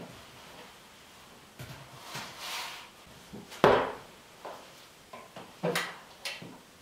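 Things handled on a desk: a laptop lid shut and a mug set down, with one sharp knock about three and a half seconds in, then clicks near the end as a table lamp's pull-chain switch is pulled.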